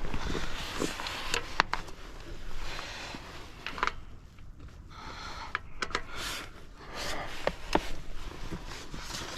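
Breaker bar and wheel-lock key being worked on a tight locking lug nut: scattered sharp metal clicks and scrapes with rustling between them.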